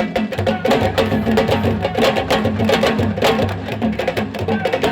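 Music with fast, busy drumming: many quick drum strokes over a steady low pitched line.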